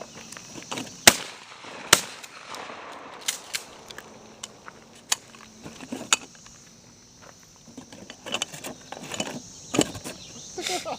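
12-gauge shotgun fired twice at a thrown clay, the shots about a second apart, followed by lighter clicks of the gun being handled. Crickets chirp steadily underneath.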